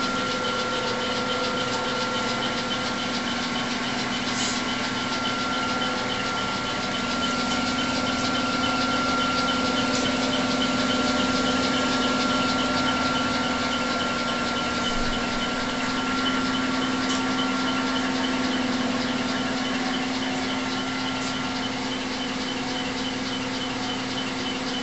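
Clausing Colchester 21-inch gap-bed lathe running with the spindle turning: a steady hum from the geared headstock and its 12.5 hp three-phase motor, with a thin higher whine that fades out near the end, over faint fast ticking.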